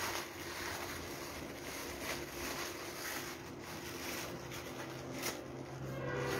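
Kite sheets rustling and crinkling as stacked kites are handled and laid on a cardboard sheet, with a few brief crackles.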